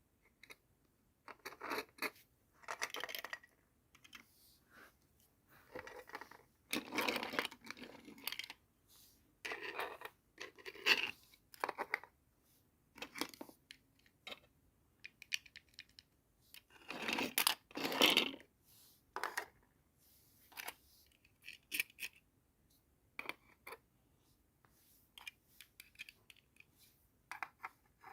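Hands unpacking and handling a plastic toy doll set: irregular rustling and scraping of packaging with light clicks and taps of small plastic pieces. The loudest bursts come about seven and seventeen seconds in.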